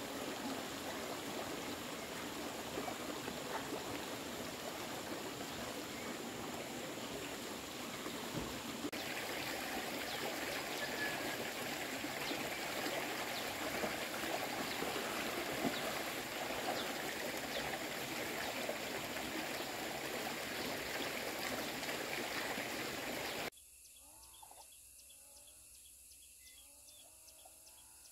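Steady flow of water in a shallow, stony stream. Near the end it cuts suddenly to faint, evenly pulsing insect chirring.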